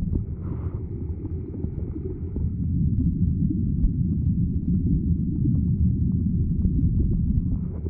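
Muffled, steady low rumble of moving water heard through an underwater camera housing, with faint scattered clicks.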